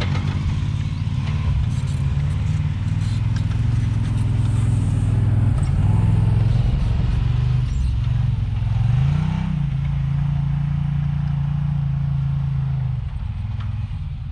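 Can-Am Maverick X3 X RC Turbo RR side-by-side driving away up a snowy trail, its turbocharged three-cylinder engine running steadily under load. About nine seconds in the revs rise and then hold, and near the end the engine gets quieter as the machine moves off.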